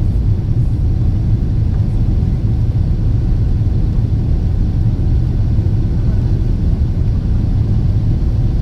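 Steady low rumble inside the cabin of a Boeing 777-300ER: its GE90 engines and airflow, heard from a window seat.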